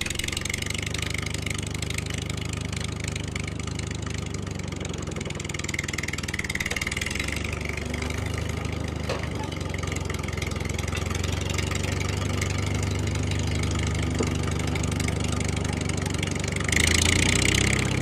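Vehicle engine running steadily at an even low pitch, getting louder shortly before the end.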